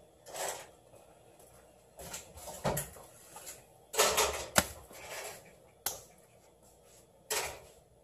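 Knife work on a cutting board while a black porgy is filleted: a handful of separate knocks and short scrapes a second or two apart, the loudest about four seconds in, with a sharp click soon after.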